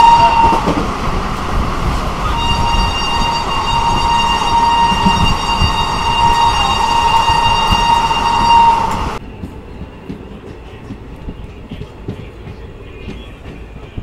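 Train horn sounding a brief blast, then one long steady blast of about six seconds, over the rumble and clatter of a moving passenger train. A little after the long blast ends, the sound cuts abruptly to the quieter rolling of the coaches on the rails.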